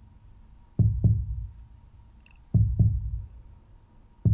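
Slow heartbeat sound: a low double thump, lub-dub, repeating about every second and three quarters, three beats in all.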